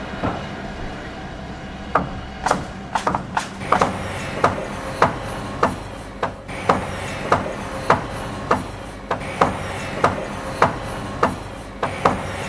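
A regular series of sharp knocks over a steady low hum. The knocks are uneven at first, then settle into an even beat of a little under two a second.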